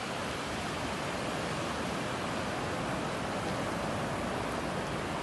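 Ocean surf on a beach: a steady, even rushing wash with no breaks.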